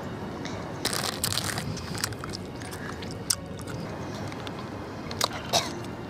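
A person eating gummy candy from a plastic bag: scattered crinkles of the bag and chewing sounds, starting about a second in, over a steady background hiss.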